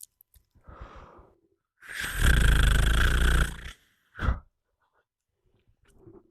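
A person snoring close to the microphone, ear-level in the manner of ASMR: a faint breath in, then one loud buzzing snore lasting about two seconds, and a short puff of breath just after.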